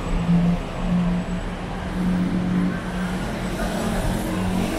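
City street traffic: motor vehicle engines running with a steady low hum over road noise.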